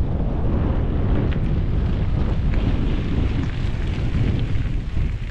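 Wind buffeting the microphone as a steady low rumble, with bicycle tyres crunching over a gravel track as a group of mountain bikers rides past.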